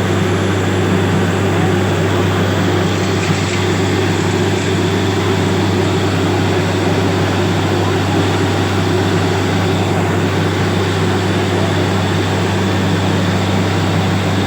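Borewell drilling machine running steadily: a constant low motor hum under a broad mechanical rush, with no change in speed.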